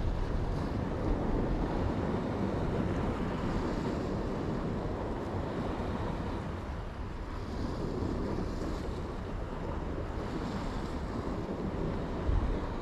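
Sea waves washing against rocky shore, swelling and easing every few seconds, with wind buffeting the microphone.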